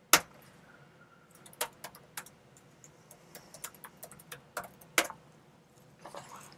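Typing on a computer keyboard: a loud keystroke just after the start, then irregular scattered key clicks, with another loud keystroke about five seconds in.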